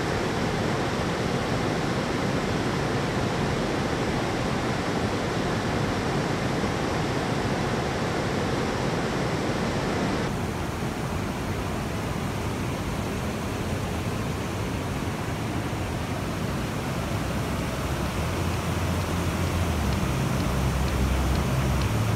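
River rapids rushing over rocks: a steady, loud noise of moving water, changing in tone about ten seconds in. A low hum comes in near the end.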